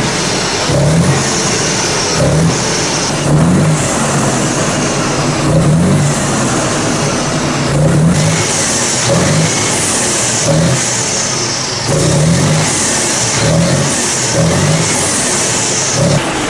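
Mitsubishi Fuso Super Great's 6R20 straight-six diesel revved in short blips about once a second. It is heard at its rectangular stainless exhaust tips, which are home-made twin- and triple-outlet tips.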